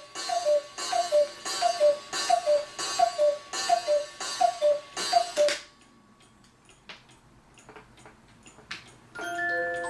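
Pre-World War I cuckoo clock calling: the two-note cuckoo, high falling to low, each note with a puff of bellows air, repeats about nine times in quick succession. It then goes quiet apart from a few faint clicks from the works, and near the end the clock's music box starts playing a tune.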